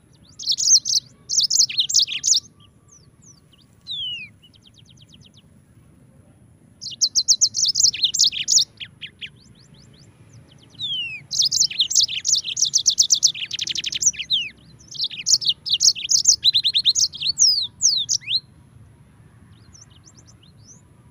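Yellow-fronted canary singing in bursts of fast, high trills mixed with quick downward-slurred whistles, broken by pauses. The longest run of song starts about eleven seconds in and lasts about seven seconds.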